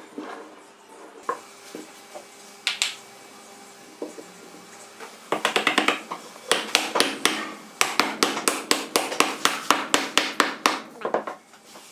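A few single knocks, then from about five seconds in a fast run of hammer taps, about four or five a second for some six seconds, typical of tapping or chopping work on a wooden joint.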